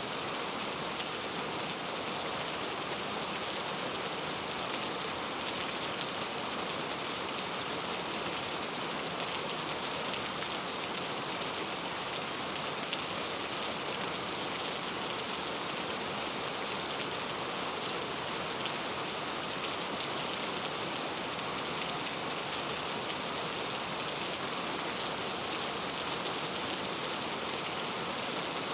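Steady rain falling on a road: an even, unbroken hiss with a fine patter of drops.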